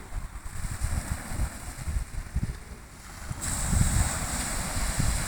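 Wind buffeting the microphone in gusts over the hiss of sea surf on the shore. The surf hiss gets louder about three and a half seconds in.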